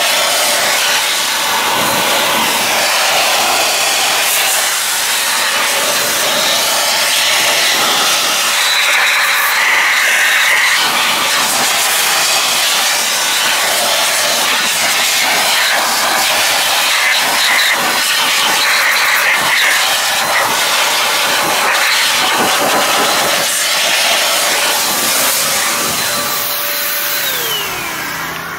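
Master Blaster Sidekick handheld car air dryer blowing a loud, steady rush of air over the wheel to dry it. Near the end the motor is switched off and its whine falls in pitch as it winds down.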